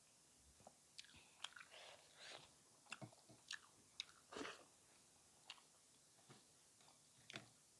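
A person chewing a mouthful of food close to the microphone, quietly, with scattered small clicks and smacks of the mouth starting about a second in.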